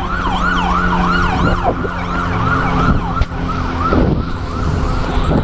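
Police car siren in fast yelp mode, its pitch rising and falling about three times a second.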